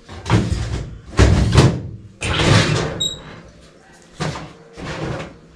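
A steel almirah's metal doors being opened and handled, giving about five separate rattles and scrapes. There is a brief high ring about three seconds in.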